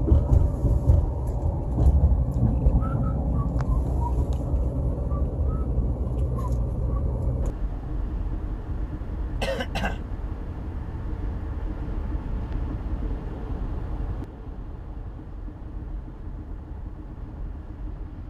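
Car driving heard from inside the cabin: a steady low rumble of engine and tyres on the road, with two short sharp clicks about nine and a half seconds in. The rumble drops in level in steps about halfway through and again near three quarters of the way.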